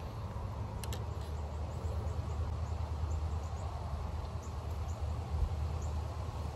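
Outdoor ambience: a steady low rumble with faint, short, high bird-like chirps scattered throughout, and one sharp click about a second in.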